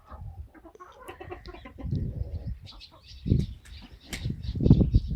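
Domestic hens clucking, with faint high chirping from about halfway in. Louder low thumps come about three seconds in and again near the end.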